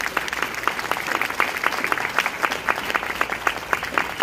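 Audience applauding: many people clapping at once in a dense, steady patter, with a few nearer, sharper claps standing out.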